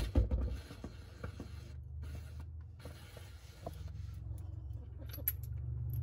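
A few faint, scattered clicks and taps of a socket wrench working the drive shaft center support bearing nuts, over a steady low hum.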